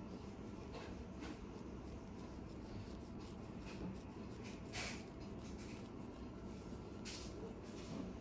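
Faint steady room hum with a few brief soft rustles, about a second in, just before five seconds in and at about seven seconds: a mesh laundry net and a padded jacket shifting as a netted cat is held on a lap.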